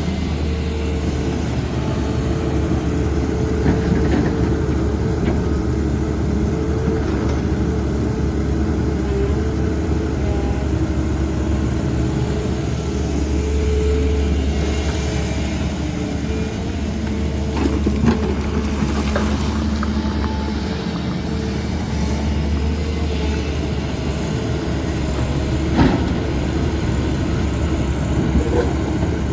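Heavy diesel excavator engine running steadily under load, with a few sharp metallic knocks from the working machinery.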